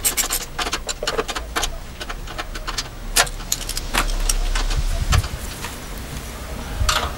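Irregular light metallic clinks and rattles of hand tools and bolts being worked while a mudboat outboard motor is bolted together.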